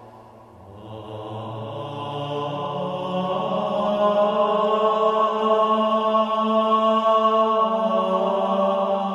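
Background music of long, sustained droning tones, meditative and chant-like. A new chord enters about a second in and swells louder over the next few seconds.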